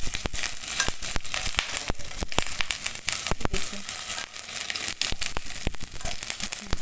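Sabudana vadas shallow-frying in a little hot oil in a kadhai, the oil sizzling steadily with many sharp little pops and crackles.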